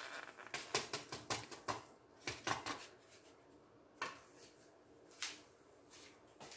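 A quick run of light taps and clicks as a small bowl is tapped and shaken to empty yeast into a bowl of milk, then two single knocks of bowls set down on the counter.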